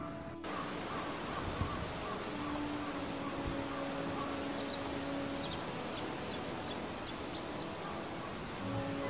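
A bird calling a quick run of thin, high, falling chirps over steady outdoor background noise.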